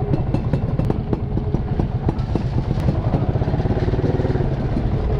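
Small motorcycle engine idling and ticking over at walking pace with a rapid, even putter as the bike creeps up and stops.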